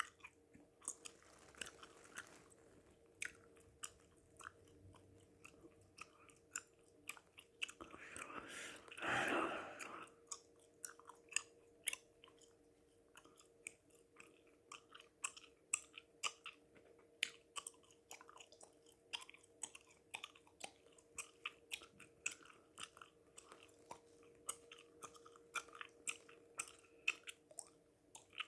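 Chewing gum: a steady run of sharp, wet mouth clicks, several a second, with one long heavy breath about eight to ten seconds in. A faint steady hum sits underneath.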